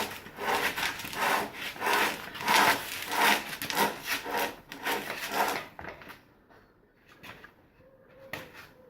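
Rhythmic scraping or rubbing strokes by hand, about three a second, stopping a little over halfway through; a few faint clicks follow.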